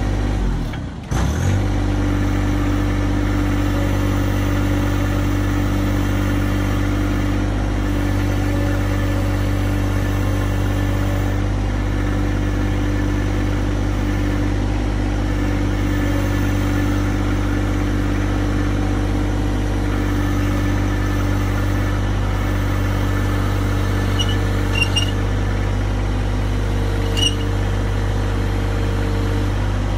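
John Deere 1025R compact tractor's three-cylinder diesel engine running steadily, its note dipping briefly about a second in. A few light clicks near the end.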